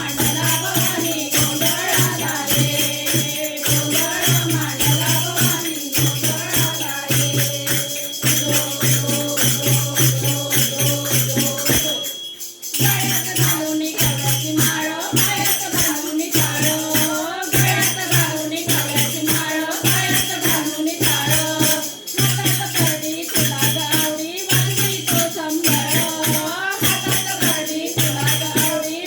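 Gondhal devotional song to the goddess Bhavani: singing over a steady driving drum beat and jingling percussion, with a short break a little before halfway.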